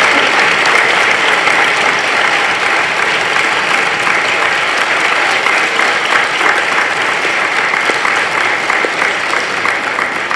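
A large audience applauding: many people clapping together in a steady round of applause.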